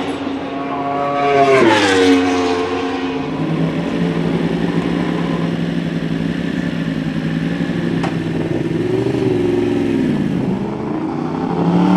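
Racing motorcycle engine revved up and dropping back within the first two seconds, then holding a steady note, with another blip and a rising rev near the end.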